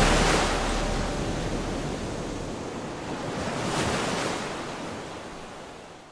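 Ocean surf washing in, a surge at the start and another about four seconds in, then fading away.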